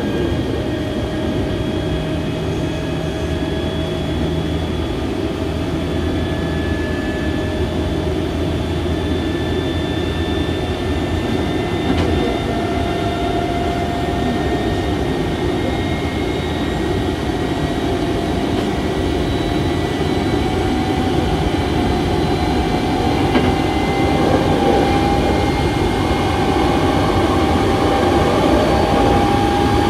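Hankyu 7000-series field-chopper electric train running, heard from inside the passenger car: steady rumble of wheels on rail under a whine from the traction motors and gears that rises slowly in pitch as the train gathers speed.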